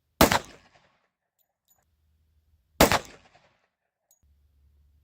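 Glock G29 Gen 4 10mm pistol firing handloaded 180-grain rounds: two shots about two and a half seconds apart, each ringing out briefly after the crack.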